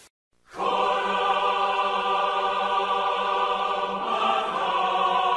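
Choral music: voices holding sustained chords. It starts about half a second in after a brief silence.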